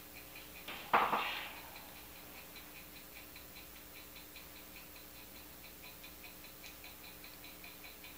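Faint regular ticking, several ticks a second, with one short breathy rush of noise about a second in.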